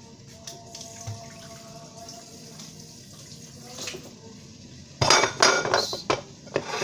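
About five seconds in, a burst of clattering at the kitchen sink: water splashing, and a wooden cutting board and knife knocking against the counter and dishes.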